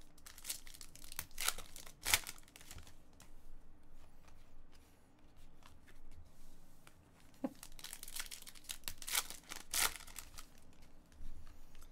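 Foil trading-card pack wrapper crinkling and tearing as it is ripped open and the cards are pulled out, in several bursts of crackles, the busiest in the first couple of seconds and again after about eight seconds.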